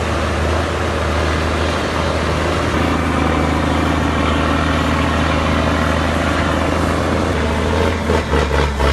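Loaded log truck's engine running steadily under load on a steep road, a continuous low hum with noise; about eight seconds in, the sound begins to pulse unevenly.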